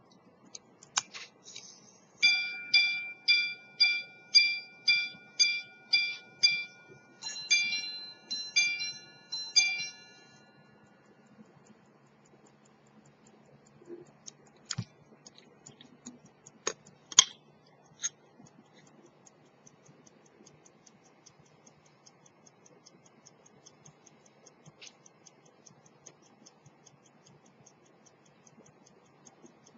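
Antique Swiss gun-metal quarter-repeater pocket watch striking the time on its gongs: nine evenly spaced single strikes for the hours, then three quick two-note double strikes for the quarters. A few sharp clicks follow, then the movement ticking rapidly and faintly.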